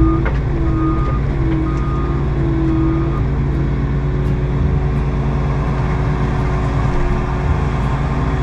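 Bobcat skid steer engine running steadily under work. A backup alarm beeps about once a second during the first three seconds or so.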